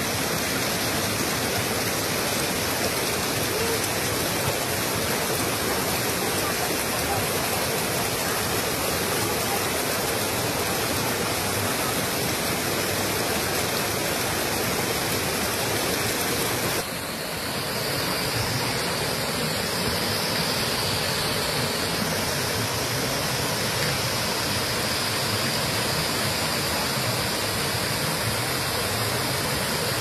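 Waterfall stream rushing over granite boulders in small cascades: a steady rush of water. A little past halfway it changes abruptly in tone, with a brief dip in level.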